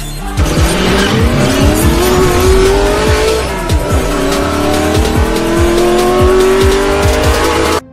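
Car engine sound effect accelerating hard: the pitch climbs, drops at a gear change about four seconds in, and climbs again. Music with a steady beat plays underneath, and both cut off abruptly just before the end.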